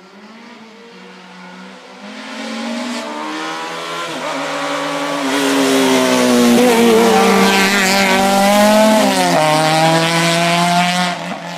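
A racing car's engine coming closer and passing while driving a slalom course, the revs rising and falling several times with lifts and gear changes. It is loudest about halfway through, drops in pitch sharply about three-quarters of the way in, then fades.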